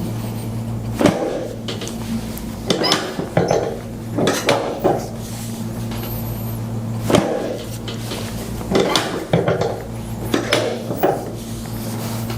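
Chiropractic adjustments of the sacroiliac joints and lower spine: about a dozen short thumps and knocks, some in quick groups of two or three, over a steady low hum.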